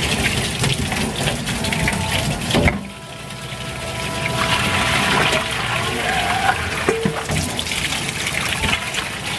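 Tap water running and splashing into a stainless-steel sink and over metal dishes being rinsed, with knocks and clatters of metal on metal. There is one loud clatter about two and a half seconds in, after which the splashing briefly drops and then builds again as the stream fills a stainless bowl.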